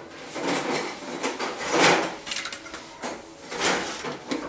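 Handling noises as lengths of PVC pipe and a tin of PVC pipe cement are moved about on a towel on a tiled floor and the tin's lid is taken off: several scraping, rustling knocks, the loudest about two seconds in.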